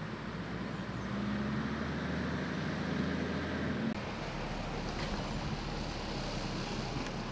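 A motor vehicle engine running steadily, a low hum that grows a little louder about a second in. About four seconds in it stops abruptly, leaving an even, fainter rumble and hiss.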